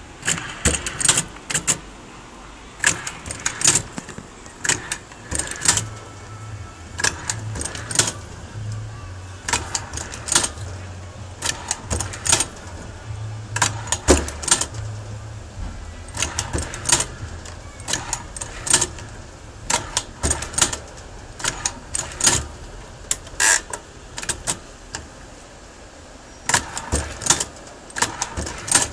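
Hand-operated dog-tag embossing machine at work: sharp metallic clacks, often in quick clusters, as its lever stamps characters and its carriage is moved along the rack. There is a short pause near the end before the clacking resumes.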